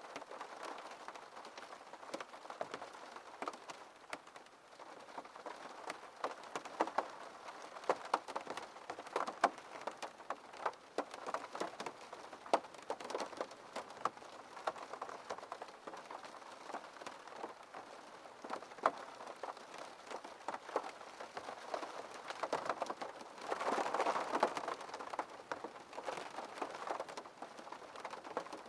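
Rain falling on a window pane: a dense, uneven patter of many small drop hits, swelling louder for a couple of seconds late on.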